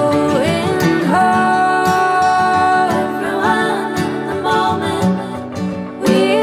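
Background song: a voice singing long held notes over guitar accompaniment.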